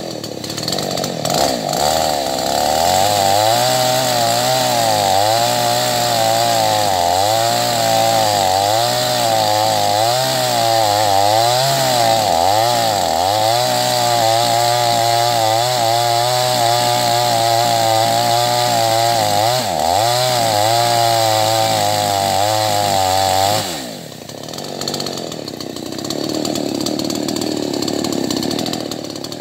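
Two-stroke chainsaw revving up and cutting wood at full throttle, its engine pitch dipping and recovering again and again as the chain bites. About 24 seconds in the throttle is released and it drops to a quieter, lower running note.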